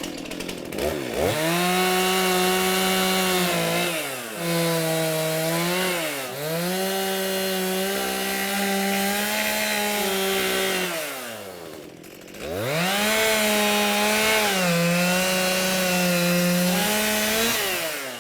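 Big two-stroke chainsaw at full throttle roughing out (blocking) a wood carving, its pitch sagging as the chain bites into the wood. The throttle is let off and opened again several times, with a longer drop toward idle about two thirds of the way through before it revs back up.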